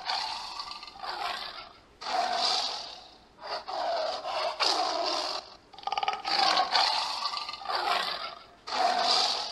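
Tiger growling: a run of raspy growls, each about a second long, one after another with short gaps.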